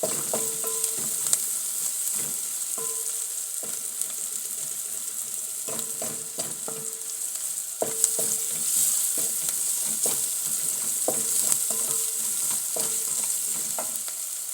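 Onions sizzling in hot oil in a pot as they are stirred, with a spoon repeatedly knocking and scraping against the pot, each knock ringing briefly.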